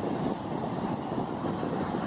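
Ocean surf breaking on the beach, a steady rushing, with wind buffeting the microphone.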